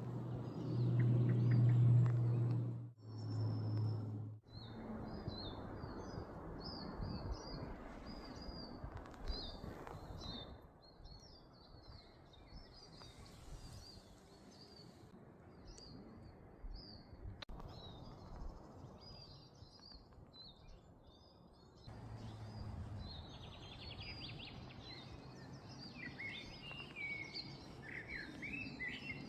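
Spring woodland birdsong: several birds chirping and singing in short, high repeated phrases over a steady background rush. A loud low hum fills the first few seconds.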